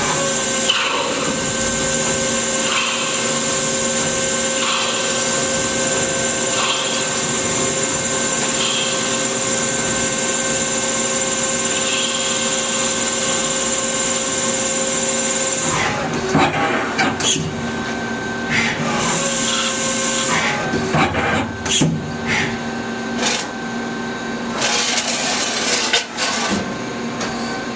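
Okuma CNC lathe spindle turning a 304 stainless steel rod, a steady machine hum with a high whine, while a grooving tool cuts the rod. Past the halfway point the steady sound breaks up into clunks and clicks as the machine moves its turret and sub spindle.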